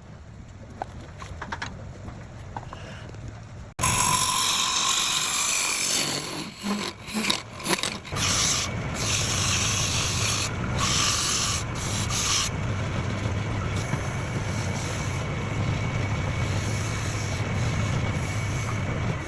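Wood on a lathe being worked, a steady scraping rub over the machine's low hum. It starts quieter with small knocks, jumps suddenly louder about four seconds in, breaks off a few times around six to eight seconds, then runs on steadily.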